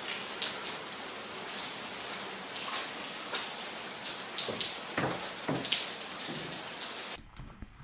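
A steady rain-like hiss scattered with light taps and clicks, cutting off abruptly near the end.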